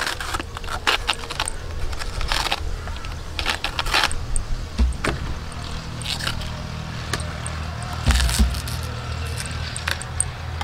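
Banana tree trunk being peeled and cut with a knife: a series of short crisp scrapes, cracks and tearing sounds from the soft, fibrous layers. A low steady rumble sits underneath, thickening from about halfway.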